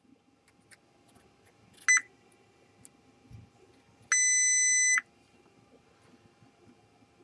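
Fluke 87 multimeter's continuity beeper: a short beep about two seconds in, then a steady beep of about a second around the middle, with faint clicks of probe tips touching chip pins. Each beep marks a low-resistance path between pins of the shorted chip.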